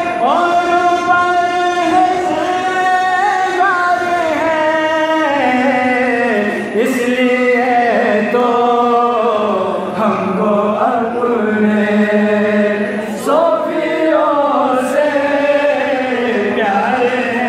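A man singing a tarana, a Sufi devotional anthem, in long held notes that glide from one pitch to the next.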